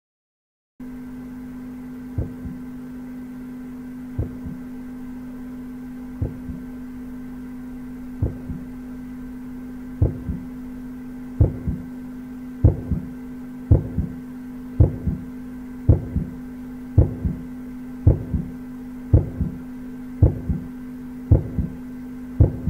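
Heartbeat sound effect: double lub-dub thumps about once every two seconds, speeding up to about once a second and growing much louder from about ten seconds in, over a steady low hum. The quickening beat is an audio cue for the strain of lifting a heavy virtual dumbbell.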